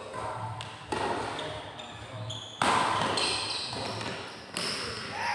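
Badminton rackets hitting the shuttlecock in a doubles rally: three sharp smacks about one and a half to two seconds apart, each echoing in the hall.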